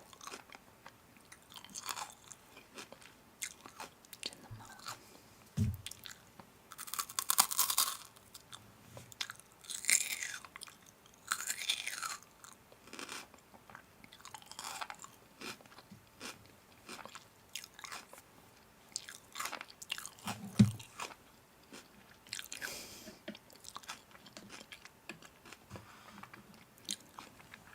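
Someone close to the microphone biting and chewing crunchy food, with scattered crisp crunches and a couple of soft low thumps.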